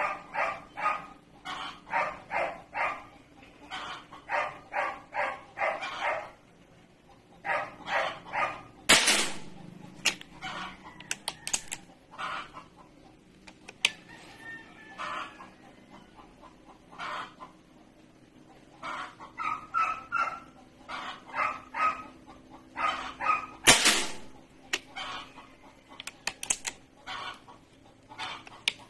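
Chickens clucking in repeated runs of short calls. Two sharp, loud reports about 15 s apart stand out, fitting shots from a .22 PCP air rifle.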